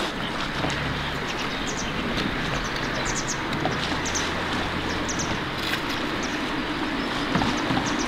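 Steady rush of river water, with a faint low hum beneath it and a few short, high chirps scattered through.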